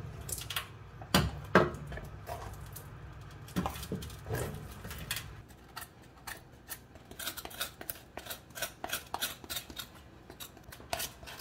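A few separate clanks of the metal oven tray, then a kitchen knife scraping the roasted skin off a cocoyam in quick, irregular scratching strokes, several a second, from about five seconds in.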